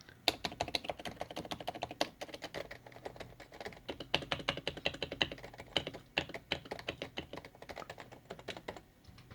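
Topre silent electrostatic-capacitive keyboard being mashed hard and fast: a dense, rapid run of key clacks that stops about a second before the end.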